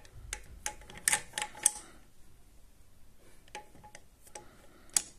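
Irregular sharp metallic clicks from tools working on a motorcycle engine as the crankshaft is nudged a little at a time to line the flywheel's timing mark up for valve adjustment. There is a quick cluster of clicks in the first two seconds, then a few more later, the last one the loudest.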